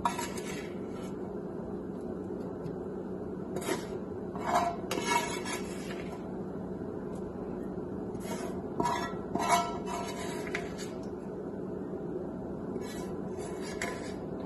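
A spatula scraping and tapping against a nonstick frying pan and a glass bowl as fried peppers and onion are scooped across, in short clusters of clinks and scrapes with pauses between. A steady low hum runs underneath.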